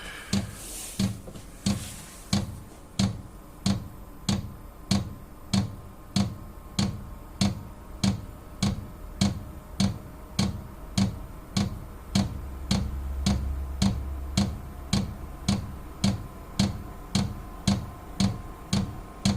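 Vevor diesel heater's fuel dosing pump ticking at an even rate of about two clicks a second during first start-up, over the faint steady whine of the heater's blower fan. A low hum swells briefly about twelve seconds in.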